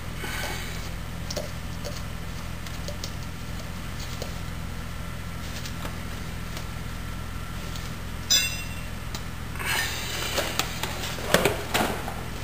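Small metal clinks as a washer and flywheel nut are threaded by hand onto the crankshaft over a Kitaco inner rotor. There is one sharp click about eight seconds in, then a busier run of clicks and scrapes near the end as a socket tool tightens the nut, over a steady low hum.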